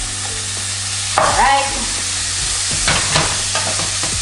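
Raw beef cubes sizzling as they start to brown in a hot pan with sautéed onions and garlic. A wooden spoon stirs them, with a few short knocks and scrapes against the pan in the second half.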